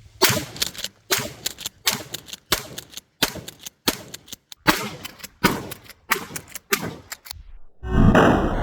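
Mossberg 500B 16-gauge pump shotgun being handled: a series of sharp metallic clicks and clacks from its action, about one or two a second. A loud rushing noise begins near the end.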